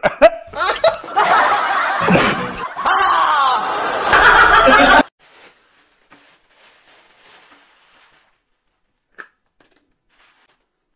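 Loud laughter and snickering for about five seconds, cutting off abruptly. Only faint small sounds follow.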